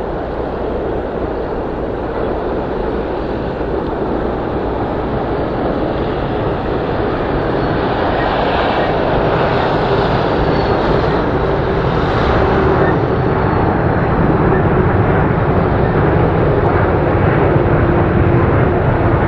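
Jet engine noise of a Boeing 787 airliner on final approach with its gear down: a steady rushing noise that slowly grows louder as the jet nears. In the second half a faint high whine and a low steady drone come through.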